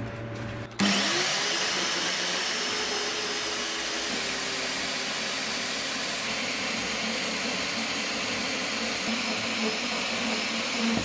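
Scheppach portable metal-cutting band saw starting about a second in, its motor spinning up, then running steadily as the blade cuts through a 50 by 50 metal bar.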